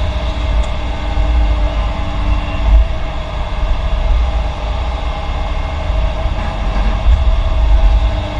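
Heavy diesel construction machinery running steadily: a deep engine rumble with a constant whine over it.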